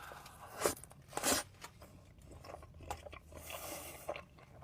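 Close-miked eating: a couple of sharp crunchy bites about a second apart, then quieter chewing and mouth sounds.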